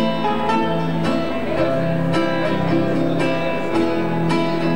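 Music led by a plucked acoustic guitar, with notes struck about twice a second in a steady beat.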